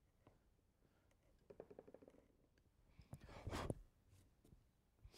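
Faint, quick run of light ticks from a hand carving tool working walnut, then a short breathy puff of air about three seconds in.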